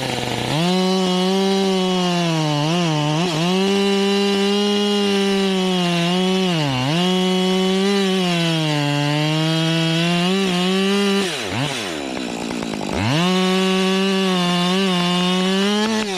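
Husqvarna 545 two-stroke chainsaw cutting wood at full throttle, its pitch dipping again and again as the chain loads up in the cut. About eleven seconds in it comes off the throttle for a couple of seconds, then revs back up and keeps cutting.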